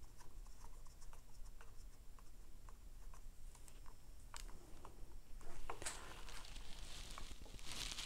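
Faint small clicks and light rubbing of fingers starting screws by hand into a motorcycle's plastic handlebar throttle housing. Two brief rustles come about six seconds in and again near the end.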